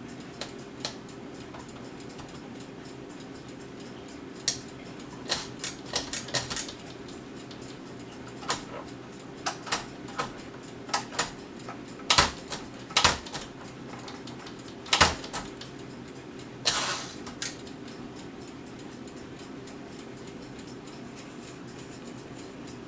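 Smith-Corona Corsair Deluxe manual portable typewriter worked slowly: single key strikes and mechanism clacks at irregular spacing, a few louder clacks, and one longer rattling clack, after which the strokes stop.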